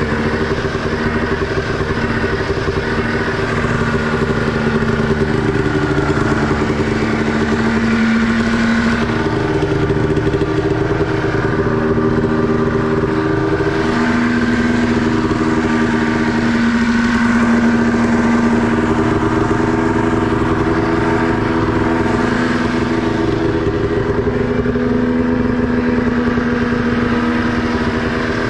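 Snowmobile engine running hard at nearly steady revs, with small dips and shifts in pitch, as the sled works through deep snow.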